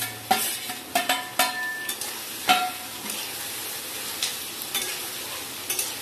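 Chopped onions sizzling in hot oil in an aluminium kadai as they are stirred, with a metal spatula scraping the pan. Several sharp, ringing metal clinks against the pan come in the first half.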